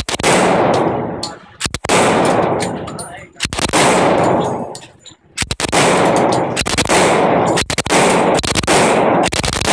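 Thompson submachine gun (tommy gun) firing about five bursts of rapid automatic fire with short pauses between them, echoing off the walls of an indoor range. The gun is working properly after earlier trouble.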